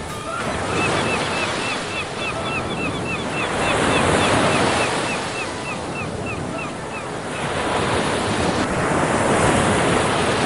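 Ocean surf: waves breaking and washing up the beach, the noise swelling and ebbing every few seconds. For much of the first part a short high chirp repeats about three times a second.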